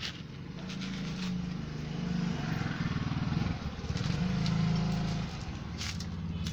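Small motorcycle engine running, its sound swelling twice as if briefly revved, around two seconds in and again around four seconds in.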